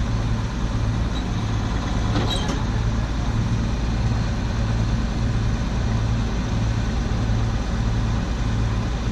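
Combine harvester running steadily at working speed, its low hum swelling about once a second.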